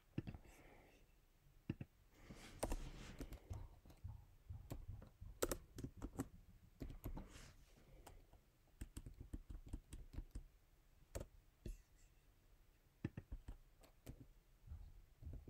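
Faint, irregular clicks of typing on a laptop keyboard.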